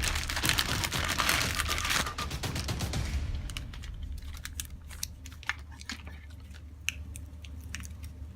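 Handling noise from unpacking: dense rustling and clicking for about three seconds, then scattered sharp clicks and taps.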